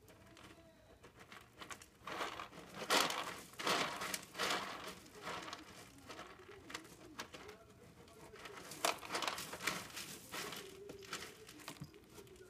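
A kitten scratching and digging in pellet cat litter in a plastic litter box: rustling scrapes in uneven bursts, loudest a few seconds in and again later.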